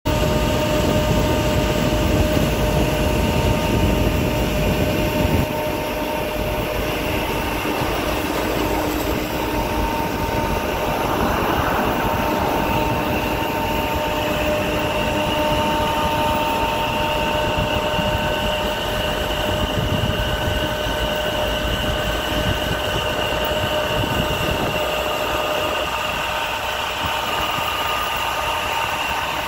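Truck-mounted disinfectant mist cannon spraying: a steady rush of air with constant whining tones from its blower, over engine and road noise. The low rumble is heavier for the first five seconds, then eases.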